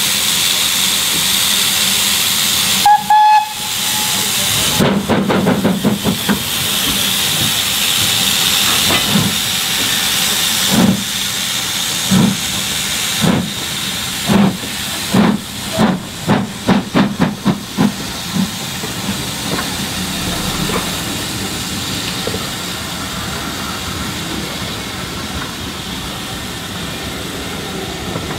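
BR Standard Class 4 2-6-4 tank engine 80072 getting a passenger train away: a short whistle about three seconds in over a steady hiss of steam from the open cylinder drain cocks, then exhaust beats that quicken as it gathers speed. Near the end the beats fade and the coaches rumble past.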